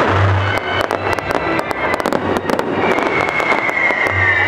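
Fireworks bursting and crackling in quick succession over loud music with a pulsing bass beat, with a long, slightly falling high whistle joining about three seconds in.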